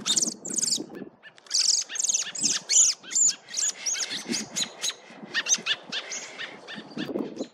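A baby bird calling: a rapid, dense series of short, high chirps that bend in pitch, several a second.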